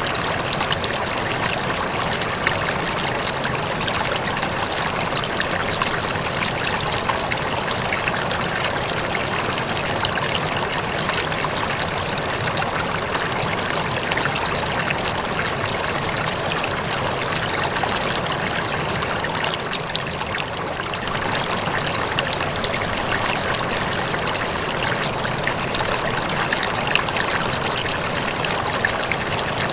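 Aquarium water trickling and splashing steadily, with many small bubbling pops.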